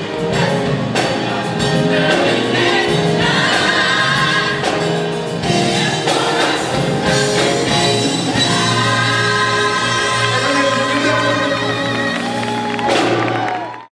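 Teen choir singing a gospel hip-hop song with drums and band behind them. Over the last few seconds the voices hold one long chord, then the sound cuts off suddenly.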